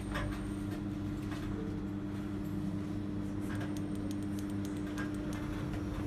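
Kone MonoSpace machine-room-less traction lift car travelling between floors: a steady hum with a constant tone over a low rumble, and a few faint ticks and rattles.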